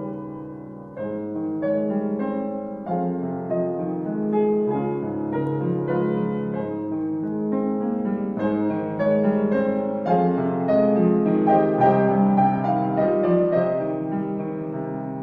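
Solo piano playing a slow composed piece: chords under a melody in the middle register, swelling a little louder past the middle.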